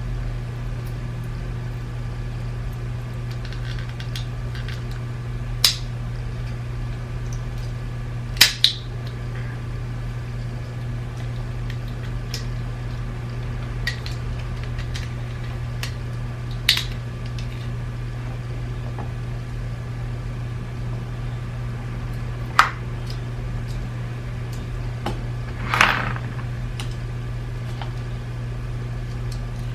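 Scattered sharp clicks and taps from handling the small plastic parts of a BMW iDrive controller being taken apart, about six clear ones spread out, over a steady low hum.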